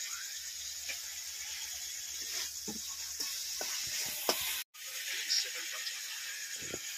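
Onions frying in an iron wok over a wood fire, a steady high sizzling hiss, with light clinks of steel pots and a spatula. The sound cuts out for a moment a bit past halfway.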